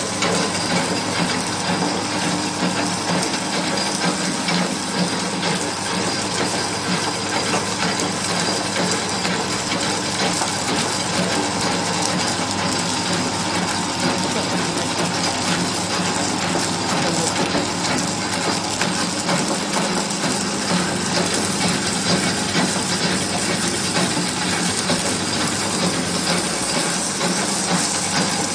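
Puffed snack food extruder running steadily under load as it extrudes puffs: a constant hum of the electric motor and extruder with a dense crackle of small clicks.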